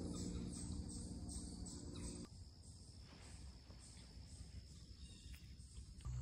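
Faint insects chirping in an even rhythm, about two to three chirps a second, over a low steady hum. The sound cuts off abruptly about two seconds in, leaving a quiet outdoor hush with a thin, steady, high insect drone.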